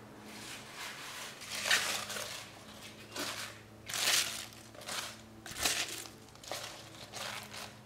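Fresh spinach leaves rustling and crunching as they are tipped from a bowl into a pot, in several separate short bursts.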